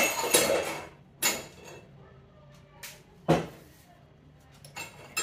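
Kitchen clatter: a rustling, clinking stretch in the first second, then a few separate knocks of things being handled and set down, the loudest a little past the middle.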